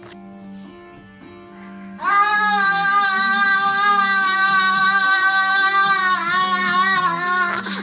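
A high-pitched voice held in one long wail for about six seconds, its pitch wavering slightly. It starts suddenly about two seconds in, over quiet plucked-string music.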